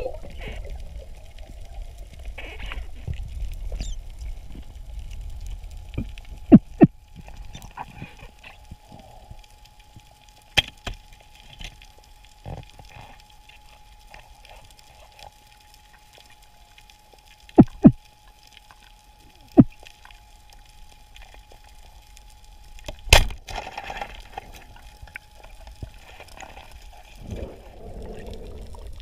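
Underwater sound recorded on a freediver's camera: a low water rumble with bubbling gurgles at the start and again after about 23 s. Sharp clicks and knocks come now and then, loudest as quick pairs about 6 and 18 seconds in. A faint steady whine runs under most of it and stops about 23 seconds in.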